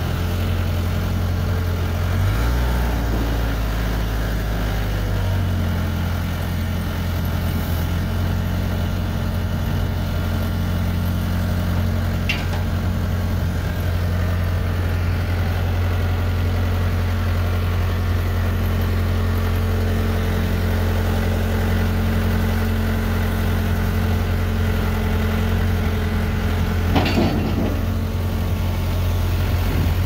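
Case 580 Super E backhoe loader's diesel engine idling steadily, its note shifting briefly a couple of seconds in. A short high squeak comes about twelve seconds in, and a brief knock near the end.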